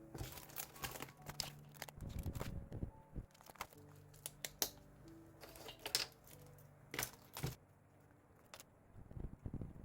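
Crinkling, crackling and rustling of paper and stickers being handled and peeled, coming in irregular clusters, over soft piano background music.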